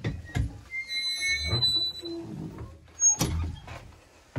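School bus's manual door-opener lever being swung and the folding entry doors opening: knocks and high squeaks from the metal linkage and hinges, then a loud clunk about three seconds in.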